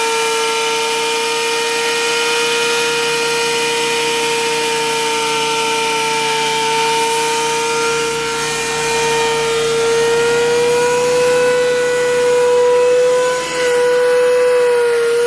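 Thickness planer's electric motor running with a steady high whine, its pitch creeping up slightly over the last few seconds.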